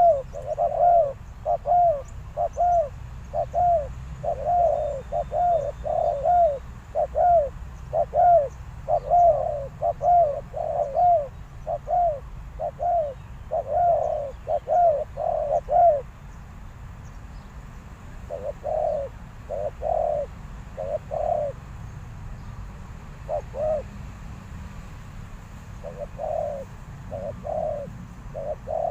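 Spotted dove cooing: a fast series of short, arched coos for about the first half, then after a brief pause, scattered clusters of the same coos. These are a decoy dove's calls used to lure wild doves.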